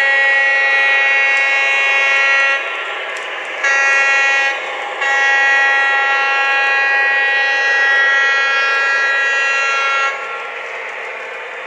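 Sound-system horn of an Atlas O scale ALCO RS-1 model diesel locomotive, from an Electric Railroad sound package meant to give it a prototype sound, blowing a long blast, a short one, then a second long blast that cuts off about ten seconds in. After that only the model's quieter running sound carries on.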